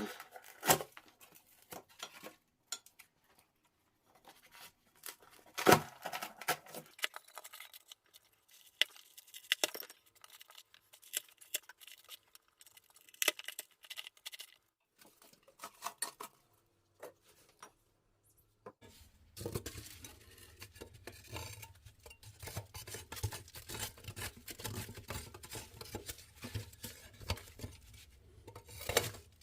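Scattered knocks and clinks of hard objects being handled. About two-thirds of the way through, a steady low rumble starts, with dense crackling over it.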